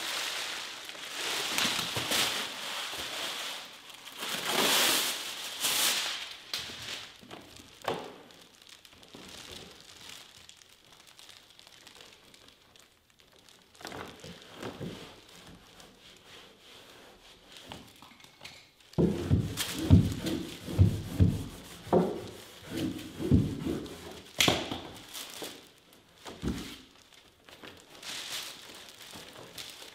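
Crinkling and rustling as a peel-and-stick carpet tile is handled, then, about two-thirds of the way in, a quick run of dull thumps as the tile is pressed and knocked down onto the wooden stair.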